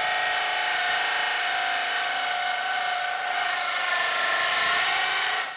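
Cordless drill driving a bi-metal hole saw into wood with hardened fasteners: a loud, steady grinding screech with several held pitched tones, stopping suddenly near the end. The hardened fastener is wearing the saw's teeth down, and one cut leaves the saw destroyed.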